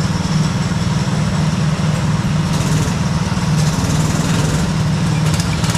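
An engine running at a steady speed: a constant low drone that holds one pitch throughout.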